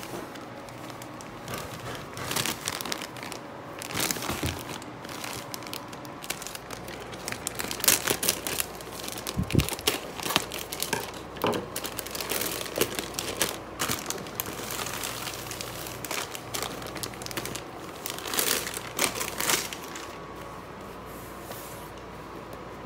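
Clear plastic packaging wrap crinkling and tearing as hands pull it off a roll-packed soft item, in irregular bouts of rustling that are loudest about eight to ten seconds in, with a soft thump about nine and a half seconds in.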